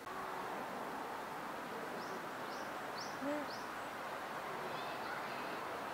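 Outdoor ambience with a small bird chirping four quick times about two seconds in, and a single short low call just after three seconds, over a steady background noise.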